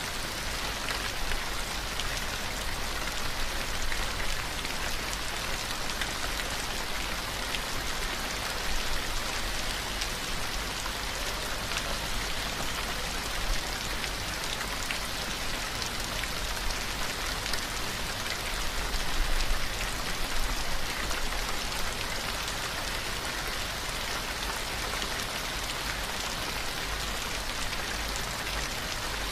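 Steady rain falling, an even hiss dotted with many small drop ticks, swelling a little about two-thirds of the way in.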